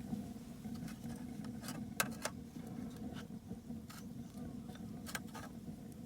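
A steady low hum with a few sharp clicks and ticks scattered through it, the loudest about two seconds in.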